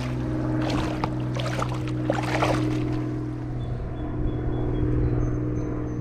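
Water splashing as a smallmouth bass thrashes in a landing net beside a kayak: a few splashes in the first two and a half seconds, then calmer, over a steady low hum.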